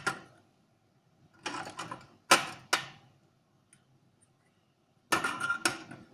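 Small hard objects being handled: two bouts of clicks, knocks and light clatter, one about a second and a half in with a sharp knock, the other near the end, with quiet between.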